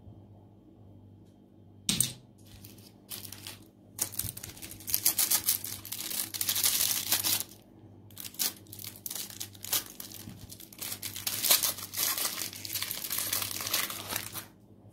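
Clear cellophane lollipop wrapper crinkling and rustling as it is handled and pulled off a swirl lollipop, in two long spells after a single sharp tap.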